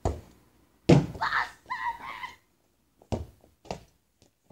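A football being kicked around: sharp thuds of the ball being struck, the loudest about a second in, then two more about three seconds in. A short shout follows the loudest thud.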